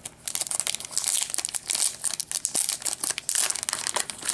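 Clear plastic wrap crinkling and crackling as it is peeled and pulled off a taped bundle of trading card packs.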